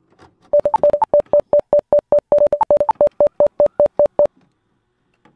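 Electronic beep sound effect for an on-screen loading bar: a rapid run of short, same-pitched blips, about six a second with a few higher ones, that stops abruptly after about four seconds.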